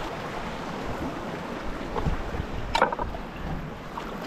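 Steady wind on the microphone and sea washing against shoreline rocks, with one short sharp sound a little under three seconds in.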